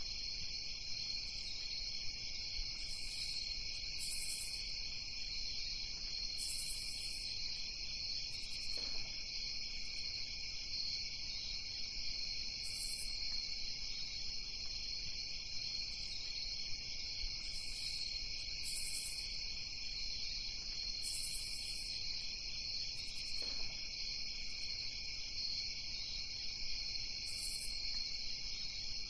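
Steady insect chorus, like crickets at night, with short, higher chirps breaking in every second or two.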